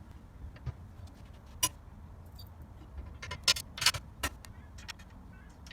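Irregular metallic clicks and knocks of hand assembly work as the handlebar bolt, washer and nut are fitted to the mower's handlebar mount. The loudest come about a second and a half in and in a quick cluster of three near the middle.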